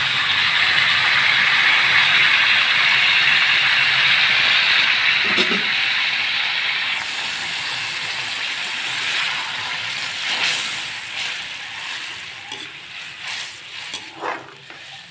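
Hot water poured into a hot karahi of oil, masala and fried taro, hissing and sizzling loudly for about seven seconds, then dying down to a quieter bubbling. Near the end a wooden spatula stirs and scrapes the pan.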